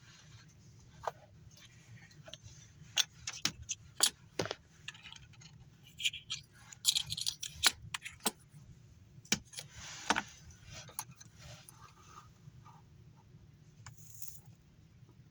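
Irregular clicks, clinks and short scrapes of small metal parts and tools being handled on a workbench, densest through the middle.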